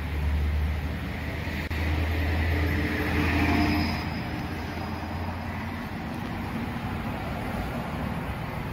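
Road traffic going by: a steady low rumble with one vehicle passing, loudest about three seconds in, then easing back to a low steady rumble.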